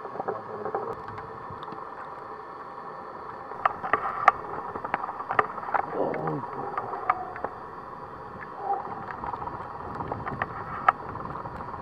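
Irregular knocks and crunches of someone moving about, likely heading outdoors into deep snow, over a steady hiss; the knocks come thicker from about four seconds in.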